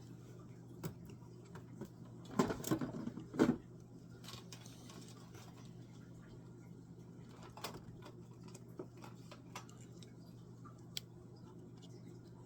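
Light clicks and taps of small objects being handled on a work surface, with a short cluster of louder knocks and rattling about two and a half seconds in, over a steady low electrical hum.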